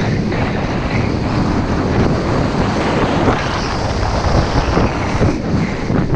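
Wind buffeting the microphone of a skier's camera at speed, with skis scraping and carving over chopped-up snow, loud and steady.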